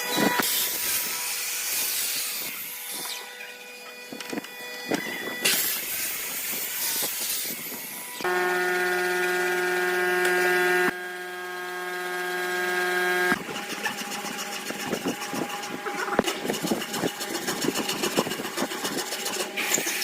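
Woodworking sounds in a series of short cuts: scraping and sawing noises with scattered knocks, and in the middle a power tool's motor running with a steady hum for about five seconds before it stops suddenly.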